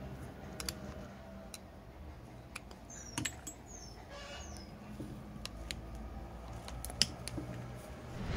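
Scattered light metallic clicks and taps from a screwdriver working out the small screws that hold the lever in the second stage of a CNG (GNV) gas pressure regulator, the sharpest click about seven seconds in.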